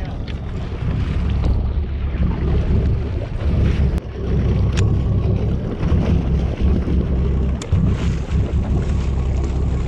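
Wind buffeting the microphone: a loud, uneven low rumble that swells and dips, with a few faint clicks.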